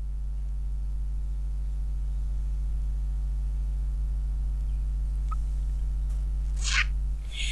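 Steady electrical mains hum, a low buzz at 50 Hz with its harmonics stacked above it, running unchanged. A brief soft noise comes near the end.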